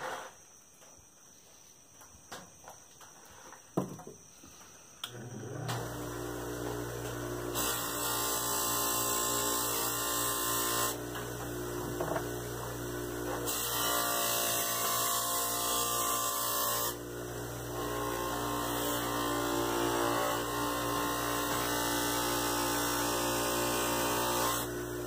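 A few light knocks, then about five seconds in a small electric bench buffer switches on and runs with a steady hum. A hiss comes and goes over the hum while the buffing wheel, charged with brown tripoli, polishes a leather sheath.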